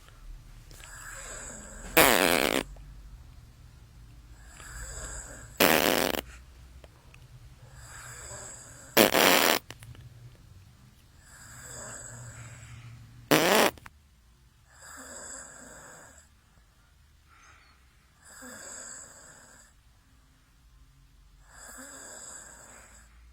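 A sleeping boy snoring in slow, regular breaths, one about every three and a half seconds. In the first half, four short, much louder rasping bursts break in between the breaths.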